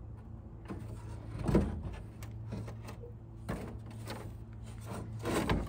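Electric radiator fan assembly knocking and rattling as it is worked loose by hand, in several separate clunks, the loudest about a second and a half in, over a steady low hum.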